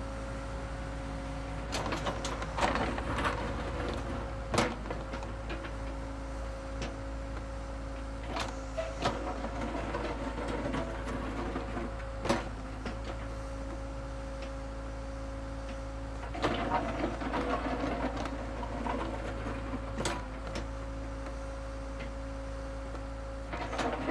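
Construction machine digging dirt: its engine runs with a steady hum, broken by sharp clanks of metal on metal and several longer rattling, scraping stretches, the longest a little past the middle.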